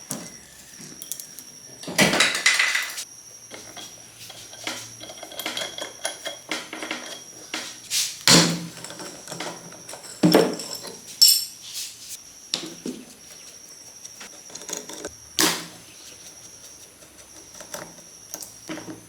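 Workshop handling noises from working on a motorcycle engine: metal parts and tools clinking and knocking at irregular intervals, with a brief scraping rattle about two seconds in and a few louder knocks later on.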